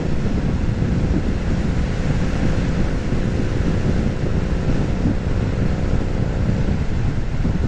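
Steady wind noise buffeting the microphone of a Harley-Davidson Street Rod riding at highway speed, with the motorcycle's engine running underneath.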